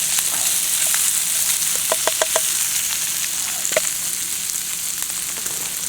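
Scallops sizzling steadily in a frying pan, with a few short clicks about two seconds in.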